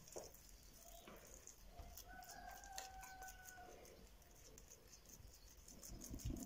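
Near silence: faint soft pats of fingers pressing oiled dough flat on a wooden counter, with a faint steady tone lasting about two seconds from about a second and a half in.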